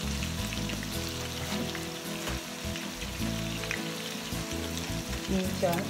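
Fenugreek seeds frying in hot oil in a wok with a light sizzle and crackle, under background music.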